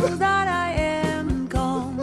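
Folk song playing: a voice sings a held, gliding melody over guitar accompaniment with a steady beat.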